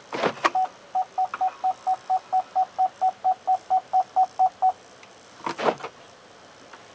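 Gear selector of a GM Daewoo Alpheon clunking into reverse, then the car's reverse warning beeper sounding a rapid run of short beeps on one pitch, about four a second for some four seconds. Another clunk of the shifter about five and a half seconds in.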